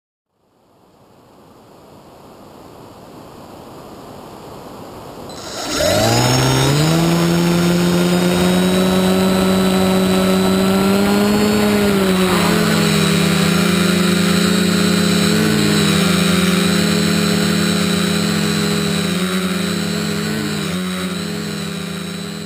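A quadcopter's brushless motors (Exceed RC Rocket 2215 920kv with APC 10x3.8 props) spin up with a sharp rise about six seconds in, after a swelling hiss. They then hum steadily, the pitch shifting up and down with the throttle through the take-off and climb.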